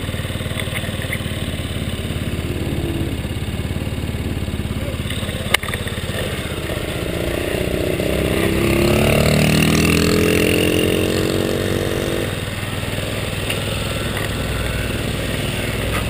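Small scooter engine idling with a steady low drone. About seven seconds in, another small motorbike engine revs up with a rising pitch, is loudest around ten seconds and drops away about twelve seconds in; a single sharp click comes about five and a half seconds in.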